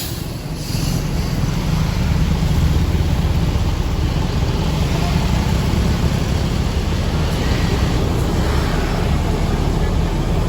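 A large tour bus's engine running close by, a steady low rumble.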